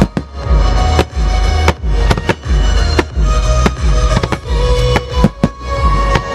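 Aerial fireworks bursting in quick, irregular succession, several sharp bangs a second, over music with held tones and heavy bass.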